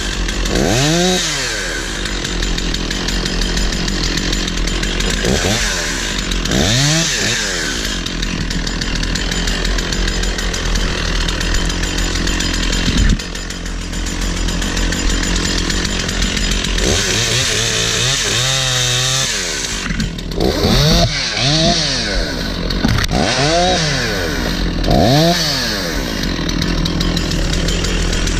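Stihl 046 two-stroke chainsaw running steadily and being revved up and back down by its throttle about six times, each rev a quick rising and falling whine.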